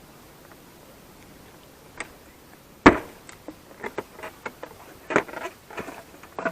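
Bajaj Pulsar 150 motorcycle seat being pushed and pulled free of its latch. A click about two seconds in, then one sharp knock, followed by a scatter of smaller clicks and knocks as the seat works loose.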